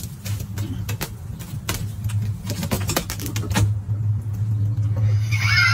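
A steady low hum with scattered light clicks and taps. Near the end a high, warbling call begins.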